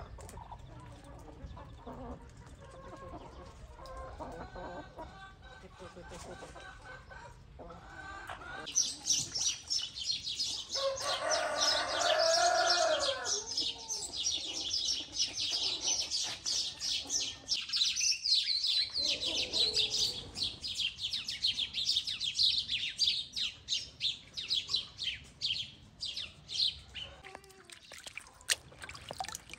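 Chickens clucking in a coop, with a rooster crowing once about eleven seconds in and another call a little later. From about nine seconds in, a dense, rapid, high-pitched chatter rises over them.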